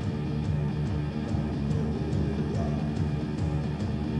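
Background rock music with guitar and a steady beat, light cymbal ticks about two or three a second.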